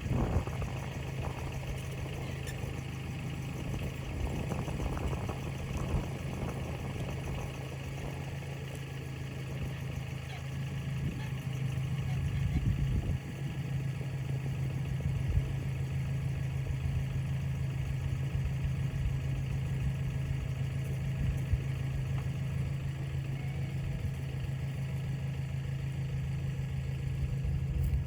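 Engine running steadily, with a brief dip about thirteen seconds in, as it pulls on a rope rigged through several pulleys to roll a log; the log does not roll.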